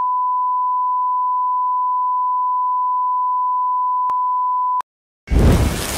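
A steady 1 kHz sine test tone, the kind that accompanies colour bars. It cuts off suddenly near the end, and after a brief silence a loud burst of noise breaks in.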